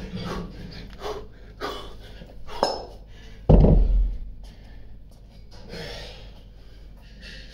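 Hard, rhythmic breathing through the last thrusters with a pair of 16 kg kettlebells, with a sharp clink a little before the loudest event: a heavy thud about three and a half seconds in as the kettlebells are set down on the rubber gym floor. Quieter panting follows.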